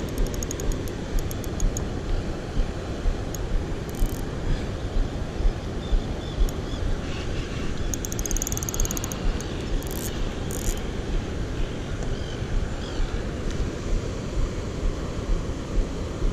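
Wind buffeting the microphone, a steady low rumble with frequent gusty peaks. Faint rapid ticking comes briefly at the start and again about eight seconds in.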